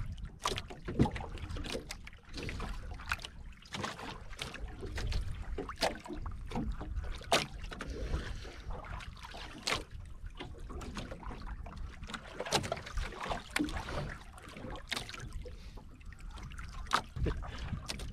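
Wind on the microphone and water slapping against a small outrigger boat, with irregular sharp knocks and clicks.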